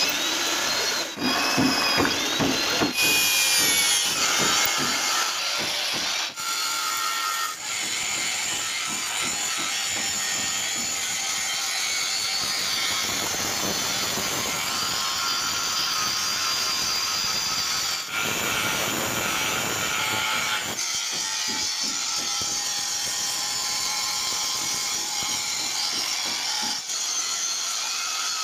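Electric power tools working the steel of a truck chassis: a drill boring holes through the chassis rail and an angle grinder cutting steel plate. The result is a continuous high, whining grind that changes character several times.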